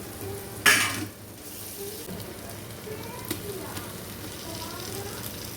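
Food frying in a pot of biryani masala, with a sudden loud sizzling hiss just under a second in that fades within half a second, then a steady lower sizzle with stirring.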